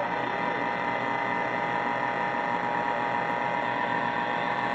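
Connex CB radio receiving steady interference: a hiss layered with many steady tones and no voice through it. It is bad interference that is on every channel.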